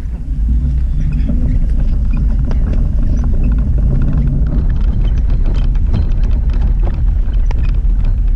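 Steady low rumble with scattered faint clicks and knocks.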